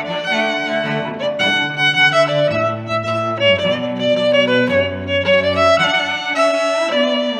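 Background music: bowed strings, a violin melody over lower sustained notes, playing at a steady level.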